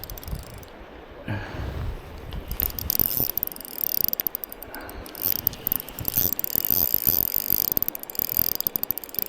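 Fishing reel ratcheting with a rapid run of clicks while a hooked steelhead is fought on the line.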